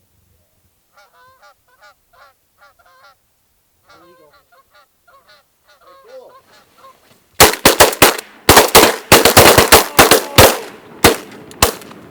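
Short goose-style honking calls come in quick groups. About seven seconds in, a fast volley of shotgun blasts from several guns follows: more than a dozen shots in about four seconds, much louder than the calls.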